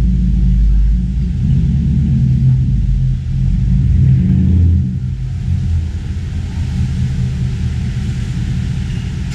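Car engine running at low speed as it tows a small enclosed trailer, a steady low rumble that eases off a little about five seconds in.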